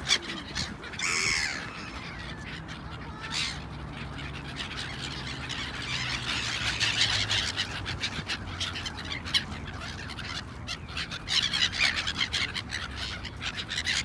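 A flock of black-headed gulls calling, many short harsh cries overlapping, getting busier and louder near the end as more gulls gather and land. A faint low drone sits underneath.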